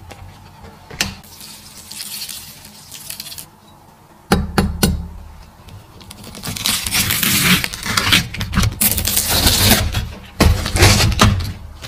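A large kitchen knife crunching and crackling down through a slab of crispy saqima (fried dumpling-wrapper pieces bound with syrup, red dates and raisins), the blade knocking on the wooden cutting board near the end. Softer rustling comes first, as the mixture is pressed flat in its tray.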